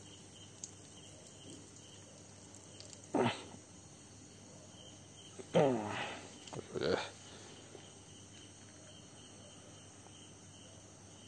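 Crickets chirping steadily in the background. Three short cries with falling pitch break in, about three, five and a half, and seven seconds in; they are the loudest sounds.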